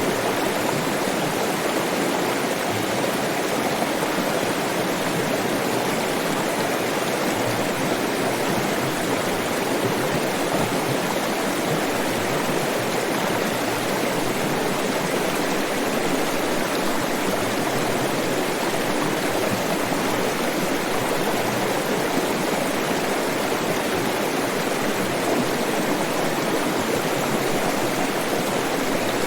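Flowing water rushing steadily over rocks, an even unbroken wash of sound.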